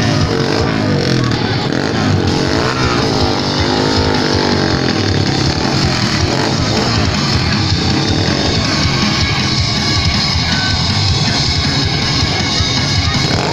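Loud rock music mixed with motorcycle engines revving inside a steel globe-of-death cage, their pitch rising and falling.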